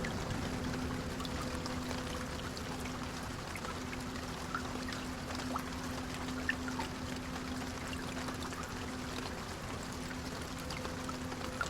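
Rain on a running long-distance coach bus: a steady wash of rain with scattered small raindrop ticks over the bus's steady low engine hum.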